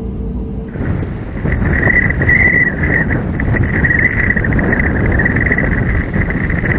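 Airbus A321neo's CFM LEAP-1A turbofans heard from outside as the jet taxis: a steady rushing noise with a wavering high whine, mixed with wind on the microphone. Under a second in, a steady cabin hum cuts off and the louder outside sound takes over.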